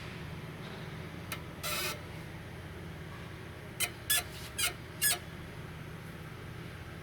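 Kia Ceed's anti-roll bar (stabilizer) links squeaking: a fault sign in the suspension. There are six short high-pitched squeaks, two about a second and a half in and four quick ones between about four and five seconds in, over a steady low hum.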